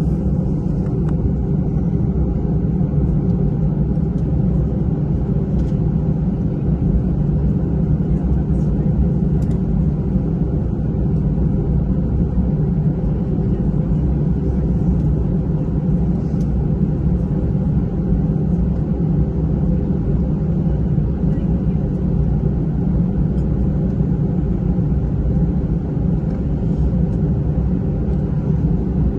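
Steady low rumble of an Airbus A320's engines running at low power on the ground, heard from inside the passenger cabin.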